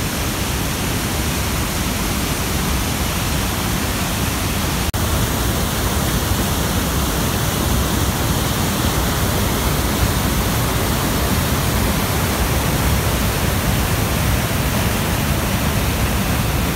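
Loud, steady roar of a flood-swollen spring river's rapids and falls, echoing off the surrounding cliff walls and captured on a phone microphone. There is a momentary break about five seconds in.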